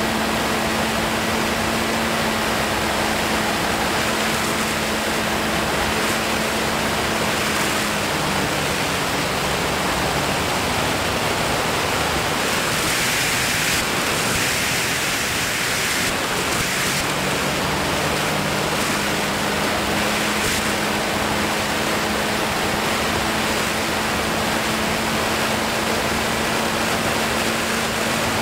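Steady rush of airflow over the microphone in flight, with a faint, even low hum underneath. The rush turns brighter and hissier for a few seconds around the middle.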